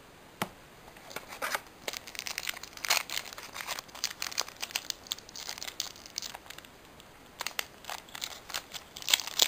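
Foil Pokémon booster pack wrapper crinkling and tearing as it is handled and torn open, a string of irregular crackles with a sharp click about half a second in.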